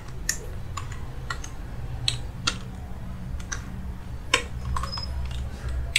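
Computer keyboard being typed on: scattered, irregular single keystrokes over a low steady hum.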